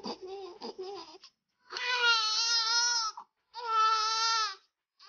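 Newborn baby crying very loudly: a run of short fussy whimpers, then two long wails of about a second or more each.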